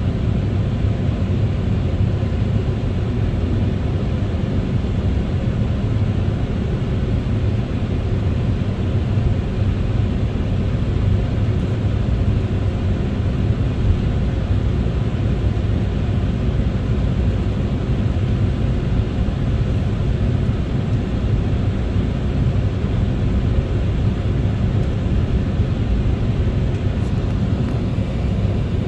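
Cabin noise inside an Embraer 190 airliner on the ground before takeoff. Its two GE CF34-10E turbofans run at low thrust: a steady low rumble with a faint steady tone above it.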